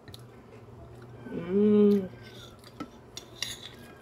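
Spoon clinking and scraping against glass plates during a meal. About a second and a half in, a person gives a short hummed "mm", the loudest sound here.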